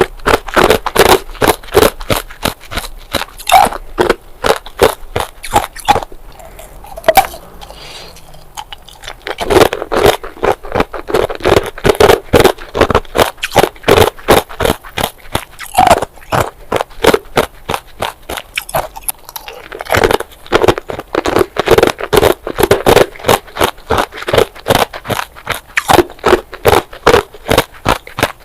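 Ice being bitten and chewed: rapid crisp crunches, about three to four a second, with a quieter pause of a few seconds about a quarter of the way in.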